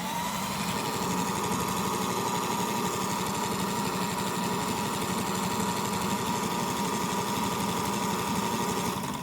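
Toy AEG ÖKO Lavamat washing machine's small electric motor running its drum with no water. There is a steady whine, which rises in pitch as it spins up at the very start and then holds level over a low hum.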